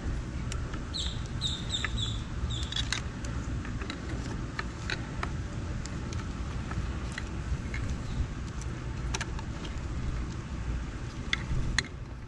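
Hands pushing an e-bike's controller, balancer and wiring into the frame: scattered plastic clicks and handling noise over a steady low rumble. About a second in, a bird gives a quick run of short high chirps.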